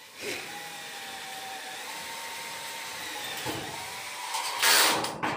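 A small electric motor runs steadily with a faint whine. Near the end comes a short, loud burst of noise.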